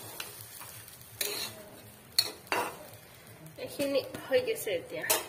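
Metal spoon stirring and scraping a frying mixture of rice, dal, potato and carrot in a steel kadai, over a light sizzle. A few separate scrapes come in the first half, then a quicker, louder run of scraping near the end.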